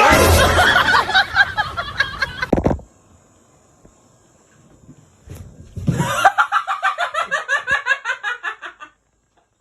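Two bouts of laughter: a loud burst at the start, then after a pause of about three seconds a run of rapid rhythmic laughing pulses, about four a second, that stops abruptly.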